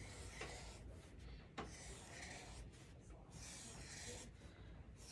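Faint scratching of a felt-tip marker on paper, coming and going in short strokes as a row of small circles is drawn, with a couple of light ticks.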